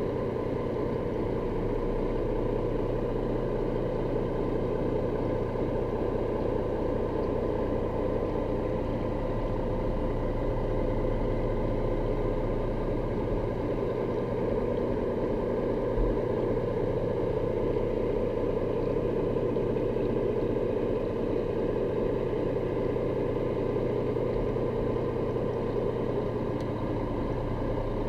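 Steady engine drone of a boat running slowly, heard underwater, with one low knock about halfway through.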